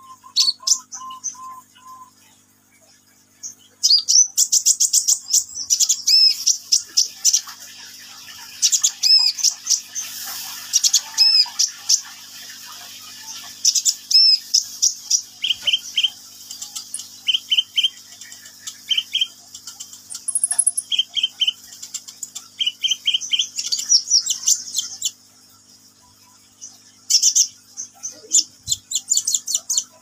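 Caged male Van Hasselt's sunbird (kolibri ninja) singing hard: fast bursts of very high, thin chirps and trills, with a run of short, lower repeated notes in the middle. It pauses briefly near the end, then starts again.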